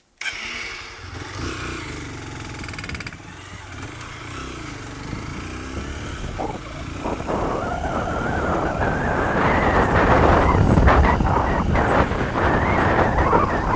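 Off-road vehicle engine running, its pitch rising and falling a few times, then growing steadily louder with rougher noise as the vehicle gets under way.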